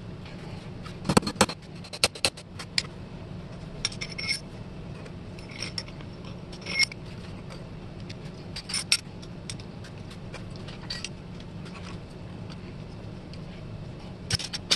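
Brass and cast-metal parts of an antique label paster clinking and scraping as a toothed gear and brass discs are slid onto a brass shaft and set down on the bench. Sharp clinks come every second or two, the loudest cluster about a second in, a few ringing briefly. A steady low hum runs underneath.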